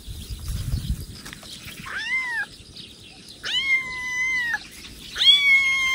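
Kitten meowing three times, high-pitched calls that rise at the start and then level off or sag, each one longer than the last.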